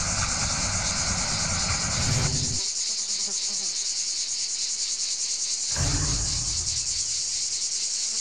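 Steady, high-pitched chorus of chirping insects, with a low background rumble that drops out for about three seconds in the middle.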